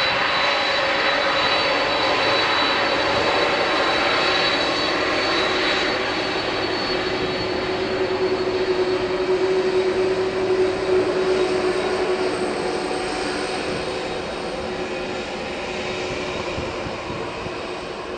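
Boeing 747-400 freighter's four turbofan engines at taxi power as the jet rolls slowly past close by: a steady jet roar with a thin high whine. A lower hum is strongest about halfway through, and the sound eases off a little over the last few seconds as the engines pass.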